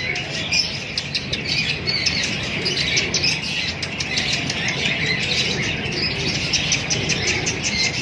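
Many caged birds chirping continuously in dense, overlapping short chirps, over a steady background hum.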